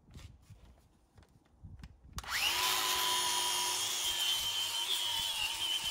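Angle grinder with a bristle disc spinning up about two seconds in, its whine rising quickly and then running steady while the disc scrubs the surface of a steel plate clean. A few faint handling clicks come before it starts.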